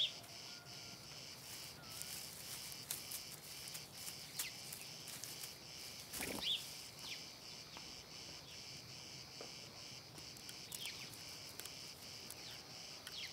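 Crickets chirping steadily in a faint, high, pulsing chorus, with a few short bird chirps here and there.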